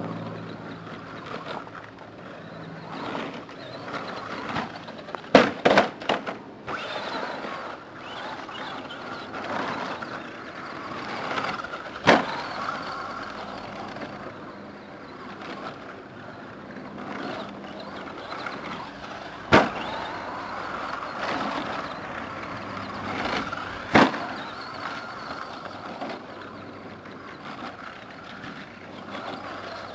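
Electric RC short course truck (Team Associated SC10, brushed Kyosho Le Mans 240ST motor) running on a dirt track, its motor and drivetrain whine rising and falling with the throttle over the noise of the tyres on dirt. Sharp knocks of the truck landing or hitting the ground come as a quick cluster about five to six seconds in, then singly about every five to seven seconds.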